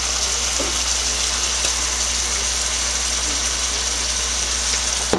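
Ground beef sizzling steadily in a frying pan, over a low steady hum.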